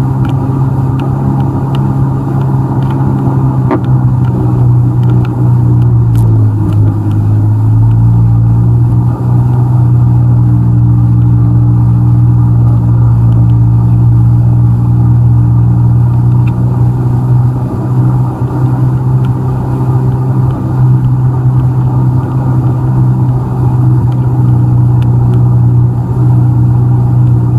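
Jet ski engine running steadily under power, its pitch dipping about six seconds in and then holding.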